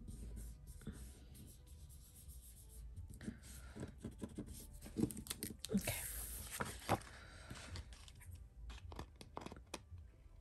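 Faint rustling and sliding of a paper planner page being handled on a wooden tabletop, with many light taps and clicks and a brief louder rustle midway.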